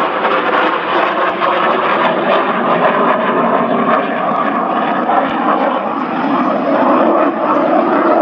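Jet noise from a MiG-29 Fulcrum's two RD-33 turbofan engines as the fighter flies a display manoeuvre. It is a loud, steady rushing noise that wavers only slightly.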